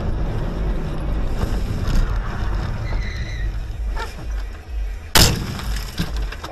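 A car's engine and road noise, a steady low rumble heard from inside the cabin. About five seconds in there is a single loud bang, the man in the road striking the front of the car.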